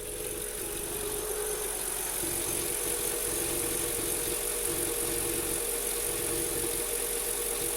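A 2003 Mercedes-Benz S430's 4.3-litre V8 idles while still warming up, with a rhythmic bubbling "brr, brr, brr" gurgle in its note. The owner hears this gurgle at warm-up and asks whether it is normal; it comes with oil pressure that seems somewhat low. The sound grows louder over the first couple of seconds, then holds steady.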